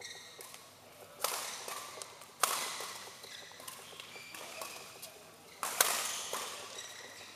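Badminton rackets striking a shuttlecock in a rally: three sharp cracks about a second or more apart, the hardest near the end, each echoing in a large hall. Short high squeaks of shoes on the court between the hits.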